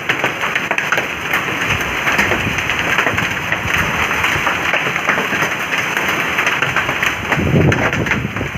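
Heavy rain mixed with hail pouring down: a dense, loud hiss of rain crowded with sharp clicks of hailstones striking. A low rumble swells near the end.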